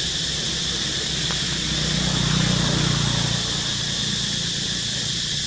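Outdoor ambience: a steady high hiss, with the low rumble of a passing vehicle swelling about two seconds in and fading a second or so later.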